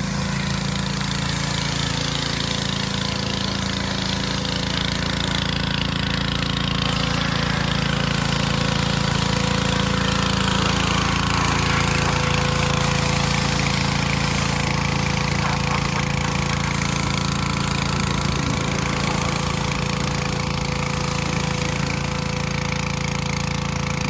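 A motor-driven machine running steadily at full speed: a constant engine-like hum under a loud rushing hiss, with no change in speed.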